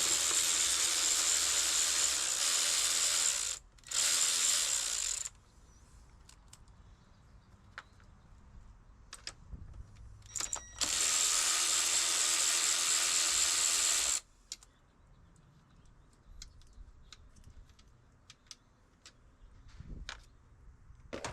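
¼-inch drive ratchet with a 10 mm socket spun fast in three bursts of rapid clicking, the first about three and a half seconds long, then a shorter one, then another about three seconds long, backing out bolts. Light clicks and taps of tools and parts come in between.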